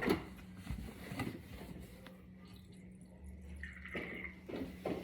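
Water from a refrigerator's door dispenser running into a cup, with a few knocks as the cup is handled.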